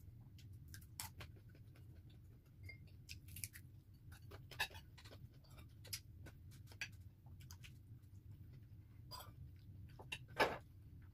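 Eating at a table: scattered light clicks and taps of a spoon and fingers on plates, with some chewing, over a low steady hum. One louder knock about ten and a half seconds in.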